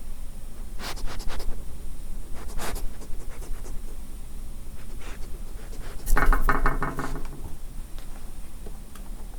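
An unseen animal sniffing close at an audio recorder's microphone, in short breathy snuffles spaced a second or two apart. About six seconds in comes a single buzzy, pitched call lasting about a second, the loudest sound here.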